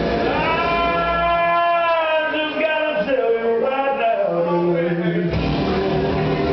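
Music with a singing voice: a singer holds one long note that bends down into a run of notes, while the bass drops out and comes back abruptly near the end.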